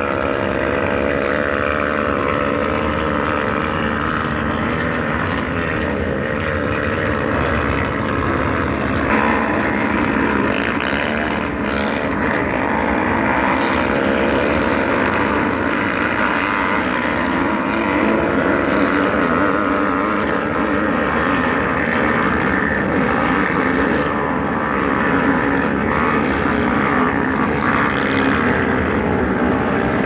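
A pack of motocross dirt bikes revving as they climb a steep dirt hill track, many engines overlapping in a continuous buzz that rises and falls in pitch.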